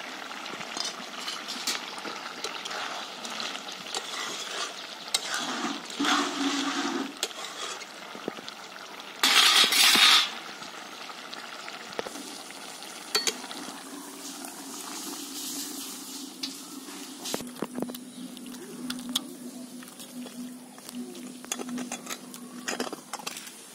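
A metal spatula stirring and scraping in a metal wok of simmering curry, with scattered clinks against the pan. About ten seconds in comes a loud rushing noise lasting about a second.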